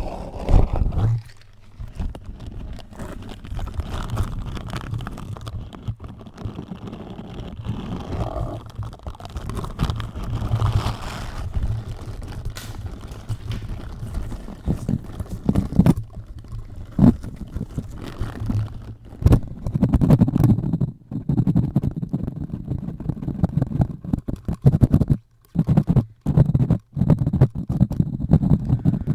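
Close-up rubbing and scrubbing directly on a microphone: dense, low rumbling handling noise full of scratchy crackles and taps. It stops briefly twice near the end.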